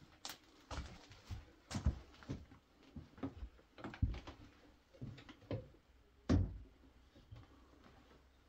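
Irregular footsteps and knocks on a hard surface, one or two a second, with the loudest thump about six seconds in.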